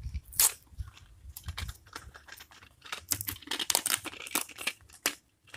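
Paper card packaging torn open by hand along its perforated tear line: crackling, crinkling tears, with a sharp rip about half a second in and a busy run of crinkling between about three and five seconds in.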